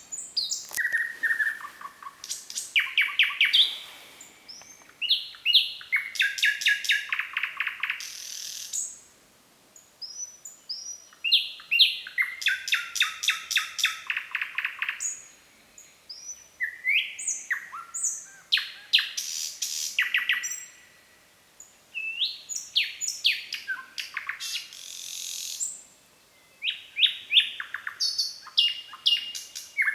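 Nightingale singing: phrases of a few seconds made of rapid repeated notes, trills and quick whistled slides, each followed by a brief pause.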